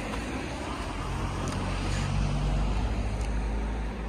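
A motor vehicle engine running with a low drone that swells about a second in and eases off near the end, over outdoor road noise.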